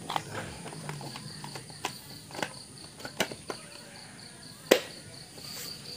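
Sharp plastic clicks and knocks as the top cover of a Stihl MS 310 chainsaw is fitted and pressed into place, the loudest knock coming about three-quarters of the way through. Insects chirp steadily in the background.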